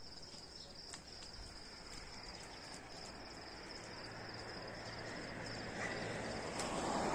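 Insects, likely crickets, trilling in one steady high-pitched pulsing note, over faint outdoor background noise that grows louder toward the end.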